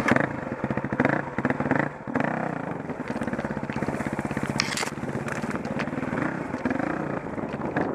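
Dirt bike engine running as the bike rides single track, its pitch rising and falling with the throttle. About halfway through there is a short, sharp scrape as brush hits the bike and rider.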